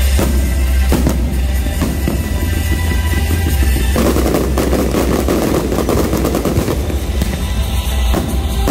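Fireworks going off in rapid volleys of bangs and crackles, over music.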